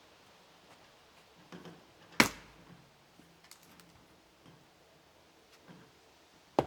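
Two sharp knocks of pieces of firewood being tossed onto a load of wood. The first, about two seconds in, is the loudest; the second comes near the end, with faint small clicks of wood between them.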